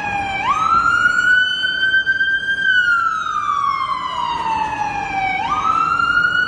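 Police siren in a slow wail, loud: the pitch jumps up sharply, holds high, then slides slowly down, and jumps up again near the end.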